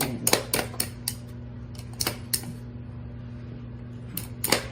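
A dog pawing rapidly at recordable talking buttons, making a quick series of plastic clicks: about eight in the first two and a half seconds, then a short cluster near the end. A steady low hum runs underneath.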